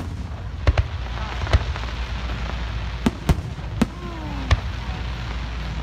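Fireworks display with aerial shells bursting overhead: about eight sharp bangs at irregular intervals, bunched in the first few seconds, over a steady low rumble.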